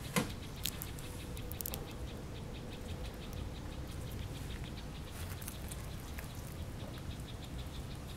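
Outdoor ambience: a sharp click at the start and a few quick high clicks, then a faint, fast ticking of about five a second over a low rumble.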